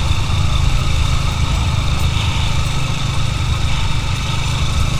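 Motorcycle engine running steadily, with a strong low rumble and a constant rushing noise over it.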